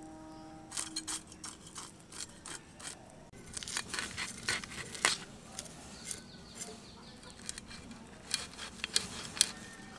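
Climbing perch being scaled and cut against the curved blade of a boti fish cutter: irregular rasping scrapes and cuts as scales and flesh come off against the blade.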